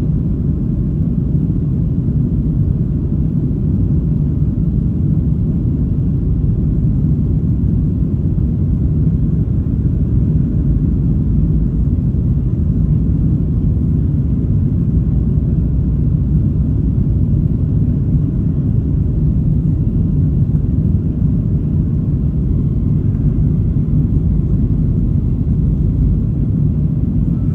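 Steady low rumble of a Boeing 737-800's engines and airflow, heard from inside the passenger cabin.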